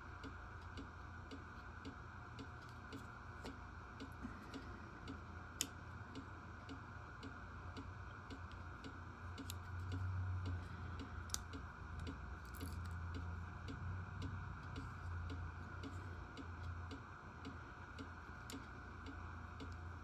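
Faint, steady ticking of a clock, about two ticks a second, over a low steady hum, with a couple of sharper clicks.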